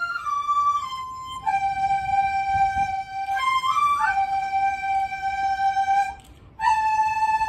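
Chinese bamboo flutes (dizi) played together on one melody, moving in steps between long held notes, with a short break about six seconds in.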